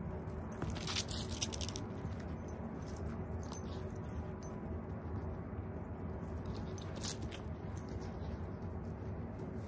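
Two border collies running and scuffling on grass as they chase a flirt-pole lure, their paws pattering, with bursts of sharp clicks about a second in and again about seven seconds in over steady background noise.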